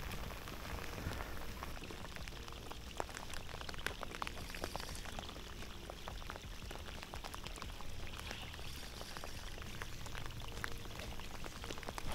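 Steady rain falling on a creek's surface, an even hiss with many scattered close drop ticks.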